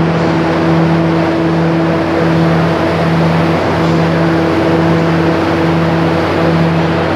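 Diesel engines of a Loram Railvac rail vacuum machine running steadily: a loud, unchanging drone with a low hum that holds one pitch.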